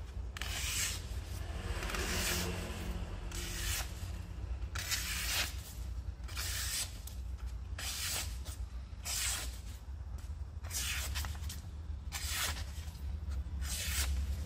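A freshly sharpened steel kitchen knife slicing through sheets of paper held in the hand, a string of short papery swishes roughly once a second as each cut goes through, a test of how sharp the new edge is.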